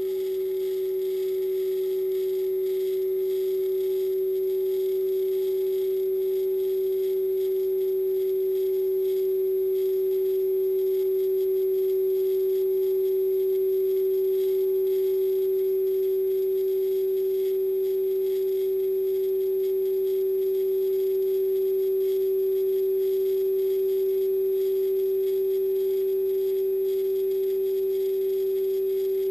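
A steady, unchanging hum on one pitch, with a fainter lower tone beneath it and a thin high whine above.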